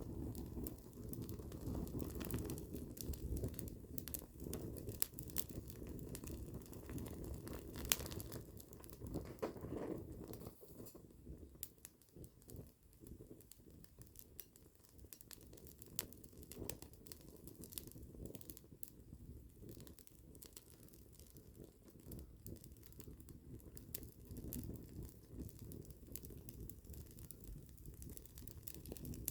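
Wood campfire crackling, with scattered sharp pops, the loudest about eight seconds in. Beneath them runs a low rumble that eases after about ten seconds and swells again near the end.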